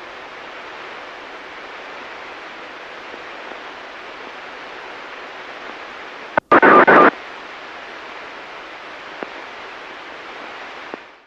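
Steady hiss of a radio receiver tuned to the municipal disaster-prevention radio channel after the chime has ended. About six and a half seconds in it drops out for an instant, then a loud half-second burst of static follows, and near the end the hiss fades out.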